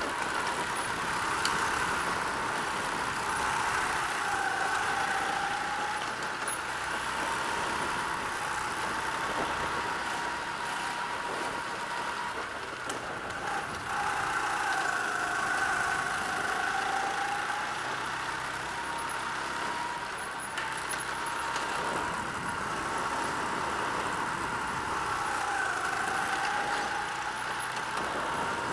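Go-kart's small gasoline engine running hard. Its note sags in pitch and climbs back again about every ten seconds as the kart slows for turns and accelerates out.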